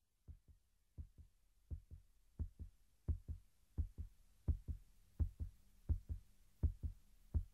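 Heartbeat-like double thumps, lub-dub, about one pair every 0.7 seconds, growing louder: a heartbeat beat in the soundtrack music.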